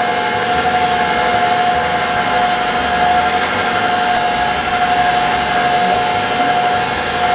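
KitchenAid stand mixer running steadily, its beater working a thick butter, sugar and egg cake batter. The motor gives an unbroken whine with one steady tone.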